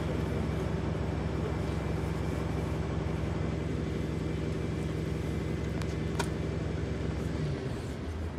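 A road vehicle's engine idling steadily with a low hum, which rises briefly and then cuts out near the end.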